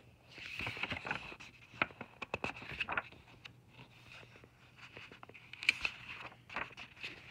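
Paper pages of a picture book rustling and turning under a hand, with soft scrapes and small taps. The handling is busiest for the first few seconds and comes again briefly near the end.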